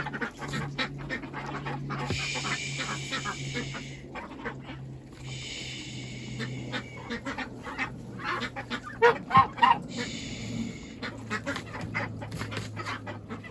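Domestic geese and ducks calling: three drawn-out harsh honks and a few louder short calls about nine seconds in, with frequent small clicks and rustles throughout.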